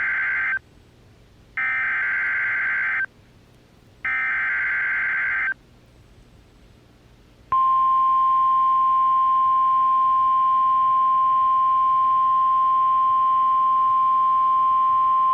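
Emergency Alert System SAME header: the end of one harsh warbling data burst, then two more bursts of about a second and a half each with a second's gap between them. About two seconds later the steady 1050 Hz NOAA Weather Radio warning alarm tone starts and holds. Together they are the coded header and alarm that open a new alert, here a severe thunderstorm warning.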